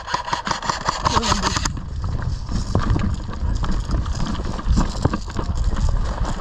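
A fast rattle of sharp clicks for the first second and a half or so, then irregular thuds and knocks of footsteps and gear as airsoft players move.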